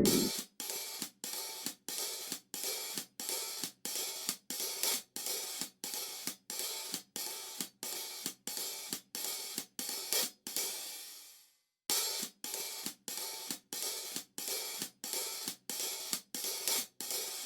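Background music with a steady, cymbal-led beat of about two to three hits a second. It fades out, pauses briefly and starts again about two-thirds of the way through.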